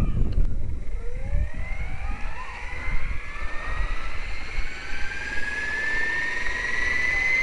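Electric RC helicopter spooling up on the ground: the motor and gear whine climbs steadily in pitch as the main rotor speeds up to hover speed.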